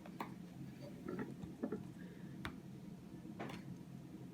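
Faint scattered small clicks and taps, about five in four seconds, of metal parts of a jukebox selection-accumulator mechanism being handled and worked loose, over a low steady hum.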